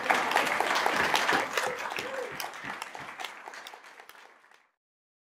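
Audience applauding, dense clapping with a few voices mixed in, dying away and ending about four and a half seconds in.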